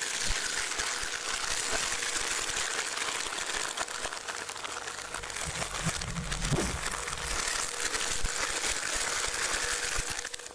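Industrial shredder's blades chewing through bubble wrap: a dense, continuous crackle and crinkle of plastic being torn and popped, over a faint steady motor hum, with a few low thumps around the middle.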